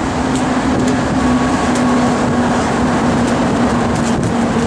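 Steady engine and road noise from inside a moving vehicle, with a constant low drone and occasional light rattles.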